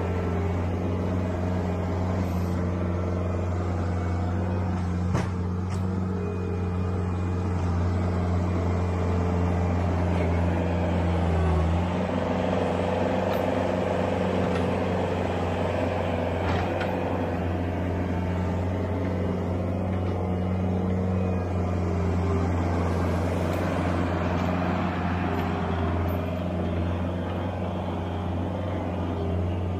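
New Holland skid steer loader's engine running steadily while the loader scoops at a topsoil mound and then drives off. A single sharp knock comes about five seconds in, and the engine note shifts about twelve seconds in.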